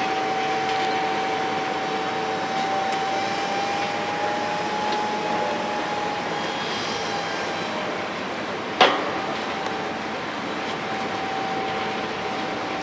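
Caterpillar excavator running with a steady whine that drifts slightly up and back down in pitch. A single sharp knock about nine seconds in.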